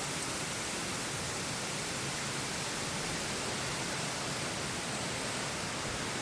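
Heavy rain and strong wind of an approaching typhoon: a steady, dense hiss.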